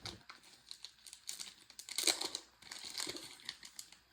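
Knife packaging being handled and unwrapped by hand: a run of irregular crinkles and rustles, loudest about two seconds in.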